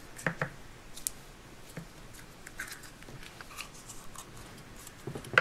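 Light clicks and rustles of hands handling a plastic Play-Doh tub and its snap-on lid, with one sharper click at the very end.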